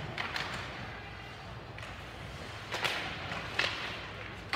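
Ice hockey play in an echoing rink: several sharp clacks of sticks and puck, spread over a few seconds, above a steady hum of arena noise.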